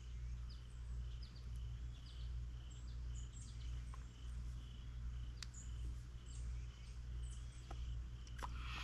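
Quiet room tone: a low steady hum with faint, short chirps repeating every half second or so. A few small clicks come from fishing line being handled and threaded through a hook eye, and there is a brief rustle near the end.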